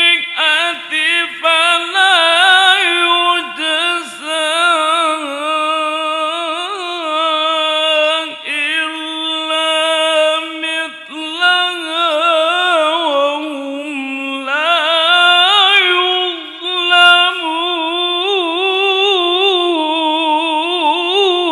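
A male qari recites the Quran in a high voice, in the drawn-out, melismatic tilawah style, with long held notes ornamented by quick wavering runs and short breaks for breath. About two-thirds of the way in, the line sinks lower, then climbs back up.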